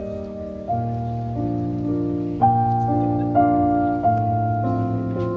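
Solo piano playing slow, sustained chords, a new chord struck about once a second, each ringing on into the next.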